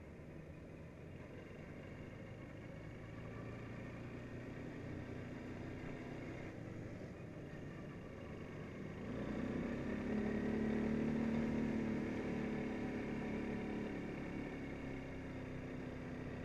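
Quad bike engine running while riding, with road and wind noise. About nine seconds in it pulls harder and gets louder with a clear engine note, then eases off a few seconds later.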